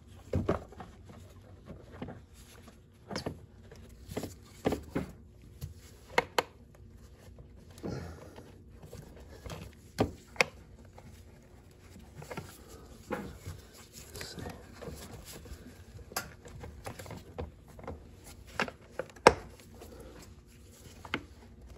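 Irregular clicks and knocks of hard plastic as gloved hands handle a 2011 Toyota Corolla's air filter housing, fitting it back together, with the sharpest knock about three seconds before the end.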